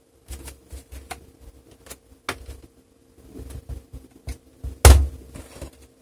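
Plastic laptop case being handled and its lid pressed shut: scattered light clicks and knocks of plastic, with one louder knock about five seconds in.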